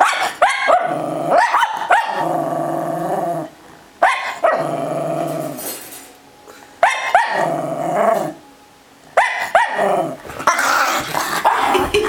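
A cairn terrier barking and growling at the loft-hatch pole in about four bouts: each starts with a few sharp barks and runs on into a long growl. Excited barking from a dog worked up by the pole.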